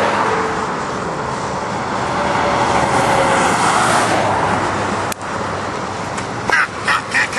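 Road traffic going past: a steady rush of tyre and engine noise that swells and fades, dropping off abruptly about five seconds in. Near the end a run of short repeated sounds begins, about three a second.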